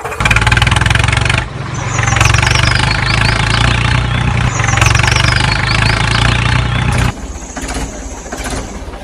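An engine running steadily with a low, even note, in the manner of a tractor engine. It stops abruptly about seven seconds in, leaving a quieter stretch with a thin high tone.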